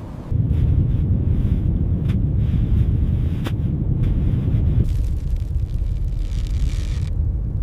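A loud, deep rumble that starts suddenly just after the start and runs on, with a couple of sharp cracks at about two and three and a half seconds in.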